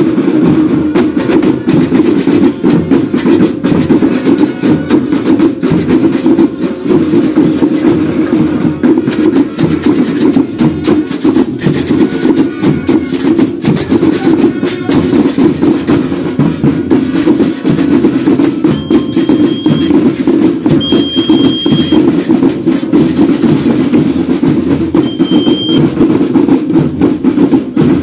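A marching percussion band playing: snare and bass drums beat a fast, continuous rhythm, with the chatter of metal tube shakers over it. Three short, high, steady tones sound about two-thirds of the way through.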